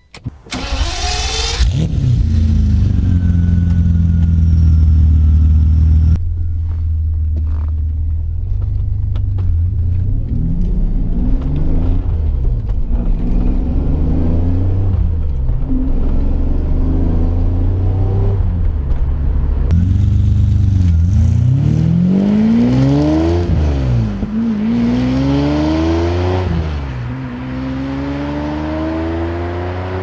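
BMW E34's V12 engine starting about a second in, running steadily, then driven off with the revs rising and falling, and later climbing hard through the gears with a drop in pitch at each shift. Heard from inside the car.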